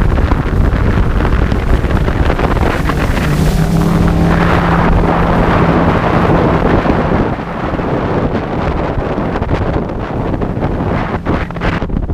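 Bass boat running over the water under outboard power, dominated by wind buffeting the microphone, with the motor's steady hum coming through for a few seconds in the middle.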